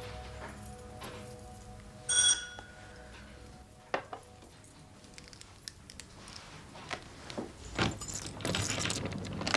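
Soft music fades out. About two seconds in there is one short, bright bell-like ring. Near the end comes clicking and rattling as a key is worked in a door lock without opening it, because the lock has been changed.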